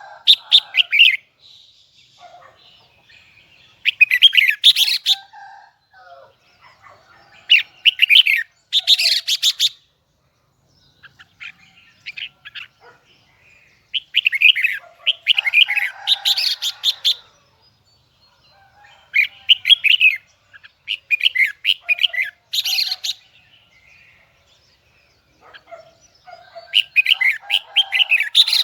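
Red-whiskered bulbul singing: about six loud bursts of rapid, warbling high notes, each a second or a few seconds long, separated by short pauses.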